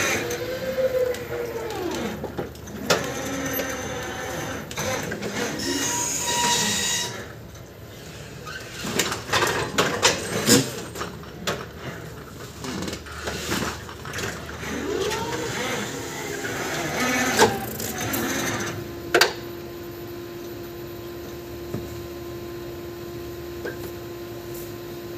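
Electric reach truck manoeuvring: its drive motor whines up and down in pitch as it moves, with scattered knocks and clicks. From about eighteen seconds in, a steady hum holds.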